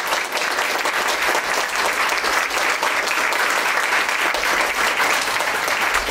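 Audience applauding: many hands clapping at once in a dense, steady clatter.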